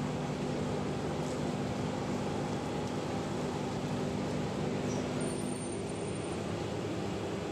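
Fishing-net shredding and washing line machinery running steadily: a low motor hum under an even mechanical noise.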